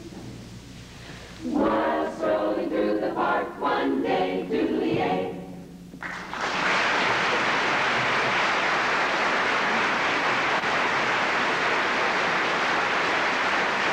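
A choir sings a short phrase. About six seconds in, audience applause breaks out and holds steady.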